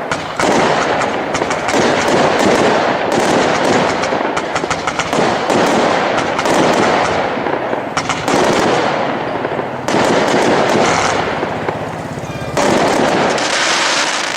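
Consumer fireworks from a display pack firing a loud, continuous barrage of rapid shots and crackling bursts, with fresh volleys starting several times.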